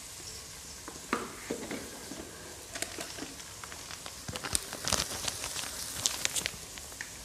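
Blended red chili spice paste sizzling in oil in a wok, with a steady hiss and scattered sharp pops and crackles as it spatters. The pops come most often between about four and six seconds in.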